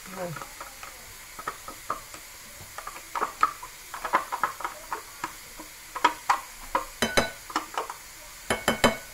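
A spoon scraping plain yogurt out of a plastic pot and tapping it off into a bowl of batter: an irregular run of short clicks and scrapes, with a few sharper knocks near the end.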